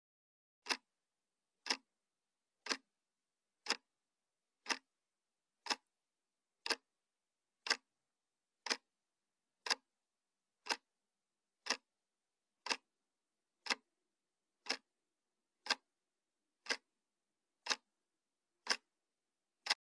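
Clock ticking as a quiz countdown timer: short, sharp ticks, evenly spaced at about one per second, with silence between.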